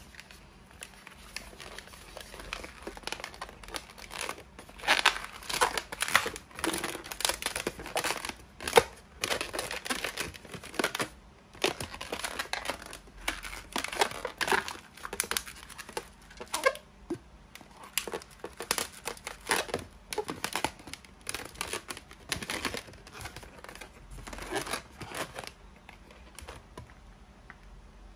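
Inflated latex modelling balloons being twisted and pressed together by hand: irregular rubbing and squeaking of the rubber, starting a few seconds in and dying away near the end.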